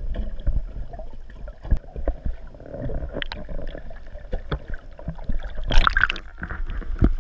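Muffled water noise recorded through an action camera's waterproof housing underwater: a low rumble with scattered knocks and taps. About six seconds in there is a loud splash as the camera breaks the surface.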